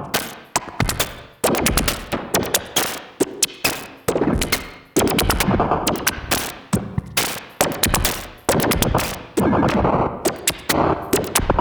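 Bugbrand Chirper modular synthesizer playing a stuttering, jumping 'hiccup' rhythm of sharp clicks and pulses, its four modulating voices switching at the same rate and chopped by a glitch effect. The sound comes in swells that start suddenly and fade every second or two.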